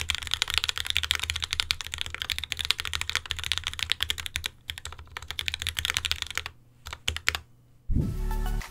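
Fast, steady typing on a Space65 custom mechanical keyboard fitted with lubed Tealios V2 linear switches, a carbon fibre plate and GMK ABS keycaps, on a desk mat. The typing slows to a few last keystrokes, and music starts near the end.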